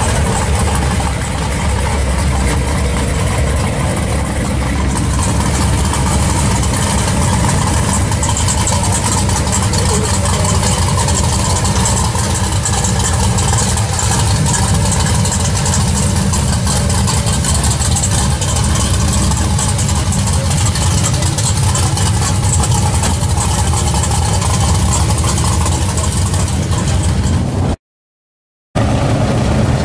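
V8 engines of classic muscle cars running at low speed as they drive slowly past, among them a Chevrolet Chevelle SS. The sound cuts out completely for about a second near the end.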